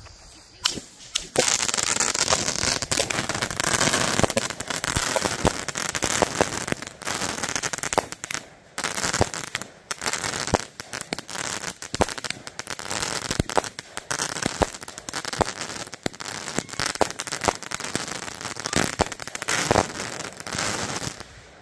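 Consumer aerial fireworks going off: after about a second, a dense run of crackling with many sharp bangs keeps up for about twenty seconds, then cuts off suddenly near the end.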